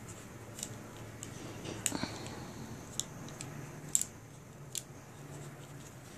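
Rubber bands being stretched and snapped around a bundle of three wine corks, with fingers handling the corks: irregular small sharp clicks, the loudest about two and four seconds in, over a faint low hum.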